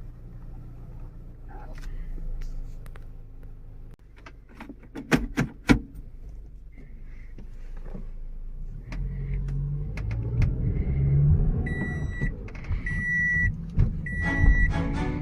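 Car sounds: a few sharp clicks, then a rising rumble of the car running, and from about twelve seconds in a high electronic chime beeping about once a second.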